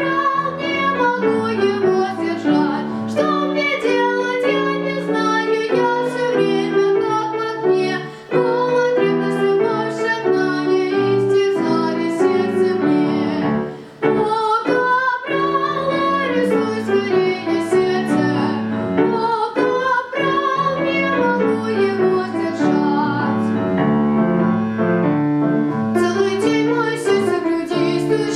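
A solo high voice singing a classical song with piano accompaniment, long held notes with vibrato, pausing briefly between phrases about 8 and 14 seconds in.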